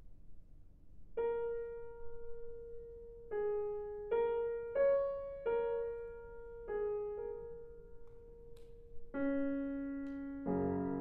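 Steinway concert grand piano playing a slow melody of single notes, each left to ring and fade, moving into fuller chords near the end.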